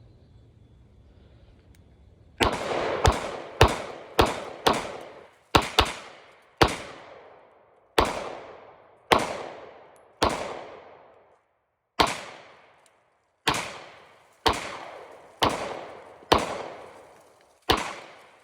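Smith & Wesson M&P9 9mm pistol firing 17 single shots, each followed by a fading echo. The first few come quickly, the rest about a second apart. This is a function test of a smoke-damaged pistol after cleaning, and it cycles every round.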